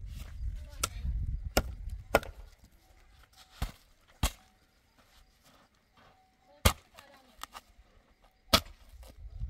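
A series of about seven sharp chopping or knocking strikes at uneven intervals, with a rumble of handling noise through the first two seconds.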